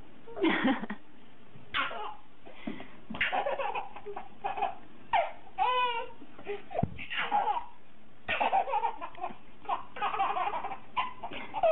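A baby laughing in repeated short bursts of giggles and belly laughs.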